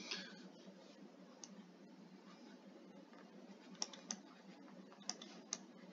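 Stylus tapping on a tablet screen while handwriting: a few faint, sharp ticks, most of them in the second half, over low background hiss.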